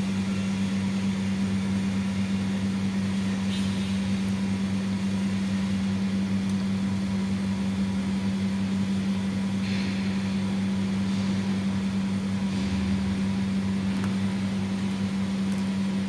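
A steady low machine hum with one strong tone, and faint brief hisses about three and ten seconds in.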